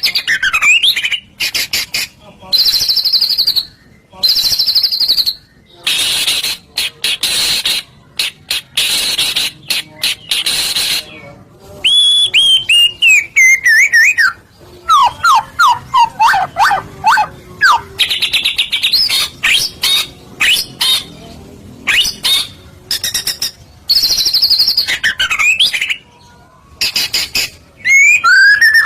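Loud songbird song played as a lure recording for caged birds: rapid buzzy trills and sharp chirps in short bursts, with whistled phrases sliding down in pitch, one of them a quick run of down-slurred notes. The phrases stop and start abruptly.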